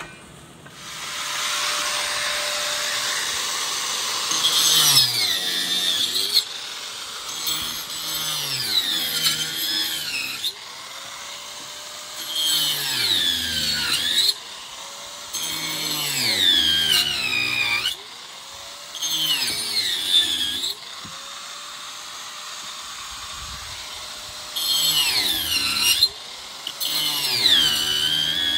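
Handheld power drill run in about seven bursts of one to three seconds, its pitch sinking under load in each burst, while the formwork for the tank is fixed.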